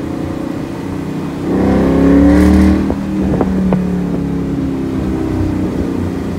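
A 2017 Mustang GT's 5.0 Coyote V8, running through a Roush axle-back exhaust with a resonator-delete H-pipe, heard from inside the cabin while driving. It gives a steady low rumble that swells under throttle about a second and a half in, then settles back. A few short clicks come around three seconds in.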